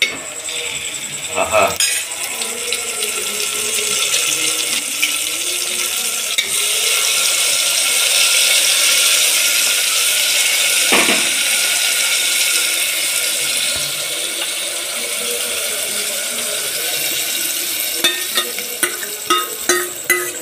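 Mango dal ladled into a hot oil tempering of fried onions and curry leaves, sizzling and hissing as it hits the oil, louder through the middle, while a ladle stirs it around the metal pot.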